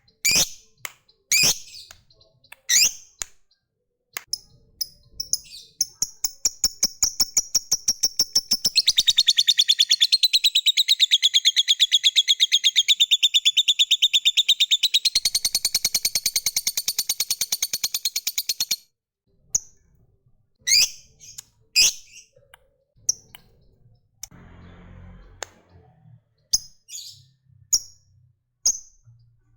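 Lovebird giving sharp single chirps, then breaking into a long, rapid chattering trill, the 'ngekek', that speeds up from about five seconds in and runs for some fourteen seconds before stopping suddenly. More single chirps follow.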